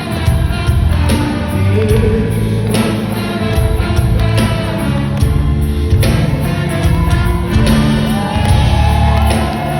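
Live rock band playing with a raspy male lead singer, heard loud in a large hall. Near the end the singer holds a long, wavering high note over the band.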